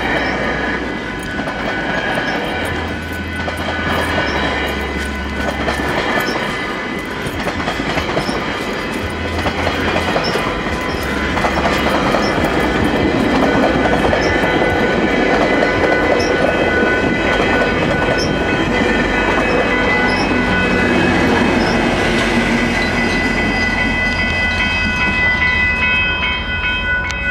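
GO Transit train of bilevel coaches rolling through a level crossing, wheels clacking over the crossing and rail joints, while the crossing warning bells ring steadily.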